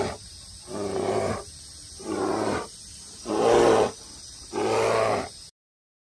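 Repeated roar-like animal calls, each under a second long, evenly spaced about one every second and a quarter. They cut off abruptly shortly before the end.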